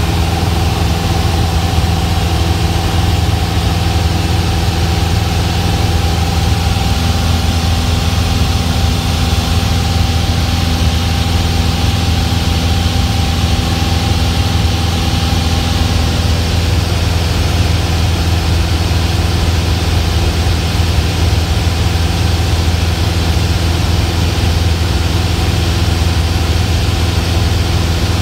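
Single-engine Cessna's piston engine and propeller droning steadily in cruise, heard inside the cockpit, with a constant hiss of rushing air.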